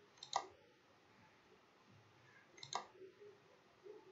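Computer mouse clicking: two quick clicks about a third of a second in, and another quick pair near three seconds.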